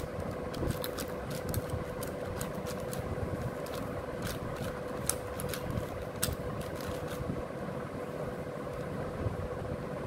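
Plastic 6x6 Rubik's cube being turned by hand: a quick, irregular run of sharp clicks as the layers snap round, thinning out in the last few seconds, over a steady background hum with a constant tone.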